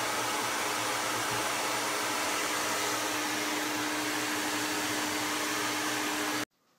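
Hair dryer blowing steadily, with a steady low hum under the rush of air. It cuts off suddenly near the end.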